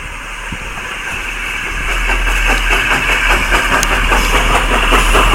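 Locomotive engine of an arriving train running with a fast regular beat, growing steadily louder as it draws nearer.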